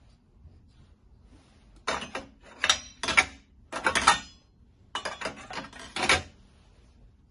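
A stainless steel tray sliding into the front slot of an electric flat-top griddle, metal scraping and clattering on metal in about six short bouts that start about two seconds in and stop about six seconds in.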